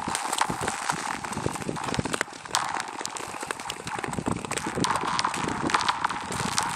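Ice skates on thin lake ice: a quick run of sharp clicks and knocks from the blades, over a ringing tone from the ice itself that swells about five seconds in.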